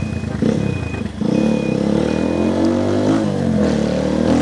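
Brixton BX 150 Scrambler's single-cylinder 150 cc engine running as the motorcycle rides up, its note rising after about three seconds; the bike wears an aftermarket exhaust that is very loud on the street. Four short high beeps sound over the first two and a half seconds.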